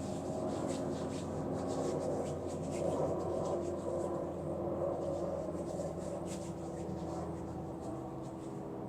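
Hands rubbing together, working a thick, oily hand lotion into the skin with a continuous soft rubbing.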